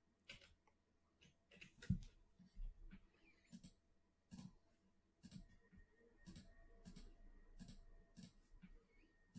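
Faint, irregular clicking of a computer mouse, about a dozen clicks spaced roughly half a second to a second apart, the loudest a heavier click with a low thump about two seconds in.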